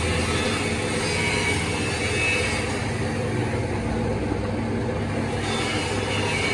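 Workshop machine running steadily, with a low motor hum under a noisy mechanical rush.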